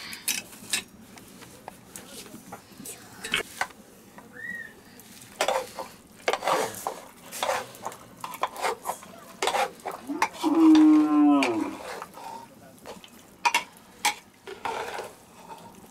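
A long metal ladle scraping and clinking around the inside of a metal cooking pot as food is stirred, in repeated short strokes. About ten seconds in, a cow moos once, a long call of nearly two seconds that drops in pitch at the end and is the loudest sound.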